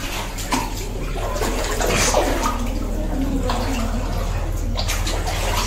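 Water running and splashing steadily, like a tub filling, over a low steady hum.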